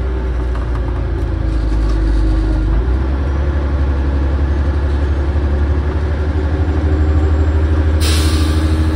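Volvo Olympian double-decker bus running under way, heard from inside the lower deck: a steady, low engine note that grows a little louder about seven seconds in. About eight seconds in, a sharp hiss of air from the bus's air system starts.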